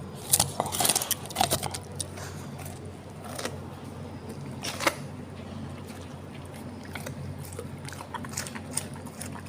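Golden retriever chewing a guava: irregular wet crunches and clicks of teeth on the fruit, thickest in the first couple of seconds, then sparser.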